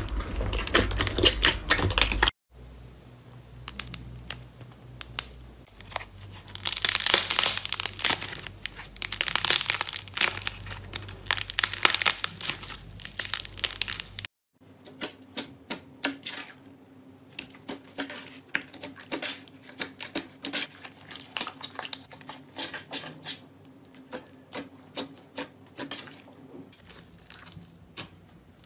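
Hands squeezing, kneading and pressing slime close to the microphone: a dense run of crackling, sticky clicks and small pops. The sound breaks off twice when the clip changes, about two seconds in and again about halfway through.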